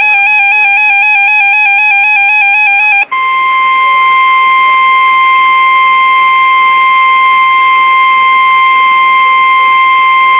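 A rapidly warbling electronic alert tone for about three seconds, then, after a brief break, the NOAA Weather Radio warning alarm tone: one steady, loud high tone (about 1050 Hz) that signals a warning broadcast is about to follow.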